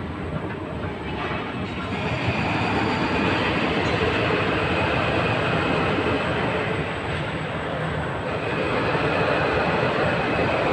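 Steady rumble of a train running, with a faint high whine over it.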